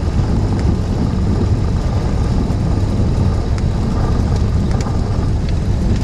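Cessna 172's piston engine and propeller running steadily at low power during the landing rollout, heard from inside the cabin.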